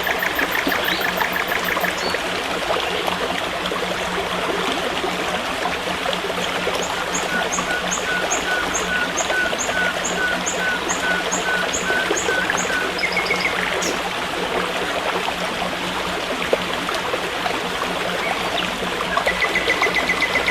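Forest stream running steadily. Birds are calling over it, with a fast-repeated call at the very start and two series of short, evenly spaced notes, about two or three a second, through the middle.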